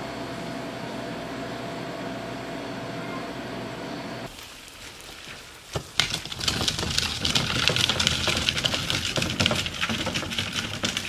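A steady indoor hum with a few steady tones that cuts off about four seconds in. After a short lull, a wheeled plastic garbage can rolls over a gravel driveway: a dense crunching rattle with sharp clicks, starting with a loud knock.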